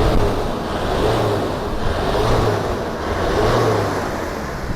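Turbo diesel engine in an Opel Blazer being revved, its pitch rising and falling about three times.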